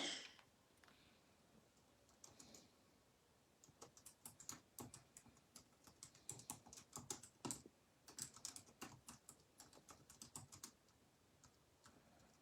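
Faint typing on a computer keyboard: a run of quick, irregular key clicks lasting about seven seconds, after a single short knock at the start.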